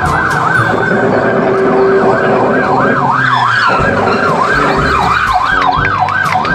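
Toy police car's electronic siren wailing rapidly up and down, about three rises a second, with a few light clicks from the toy being handled.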